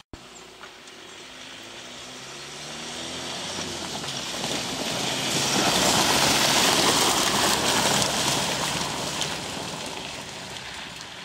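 A Ford Ranger pickup's 2.2 TDCi four-cylinder diesel and its tyres on a dirt-and-gravel track as it drives past. The engine note climbs over the first few seconds. Then the crunch of tyres on gravel swells to its loudest about six to seven seconds in and fades as the truck moves away.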